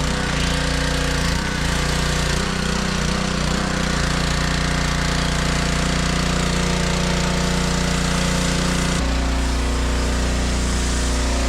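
Simpson 3200 PSI gas pressure washer running steadily with a loud hiss of spray as a foam cannon sprays soap. The engine note shifts about nine seconds in.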